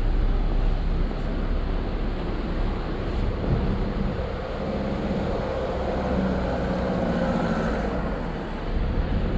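City street traffic, with a vehicle engine humming close by for a few seconds in the middle.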